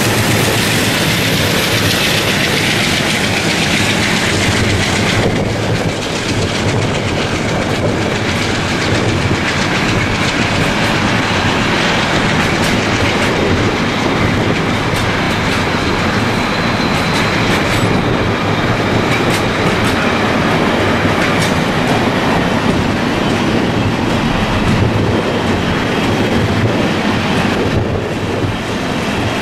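Flatcars loaded with shipping containers, part of a long freight train, rolling past close by: a steady rumble with the clickety-clack of wheels over the rail joints.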